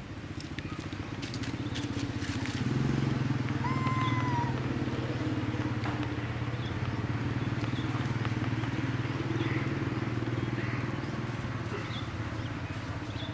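A steady, low engine drone that grows louder about two and a half seconds in and then holds. A single short high whistle comes about four seconds in.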